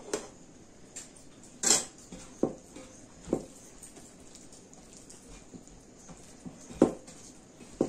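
Close-up eating sounds: about six short, sharp mouth and hand noises as rice with potato curry and lentil dal is mixed and eaten by hand from a steel plate. The loudest come a little under two seconds in and near the end.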